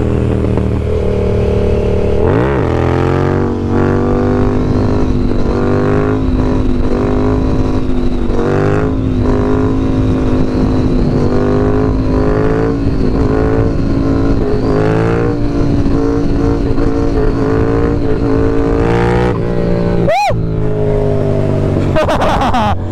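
Yamaha MT-07's parallel-twin engine through an M4 exhaust, running at a steady cruise under way with wind noise. The pitch swells slightly now and then, with a brief sweep about two seconds in and another near the end.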